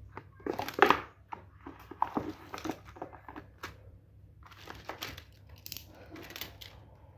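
Cardboard phone-box packaging and plastic wrap being handled: a string of crinkling rustles and light knocks, loudest about a second in.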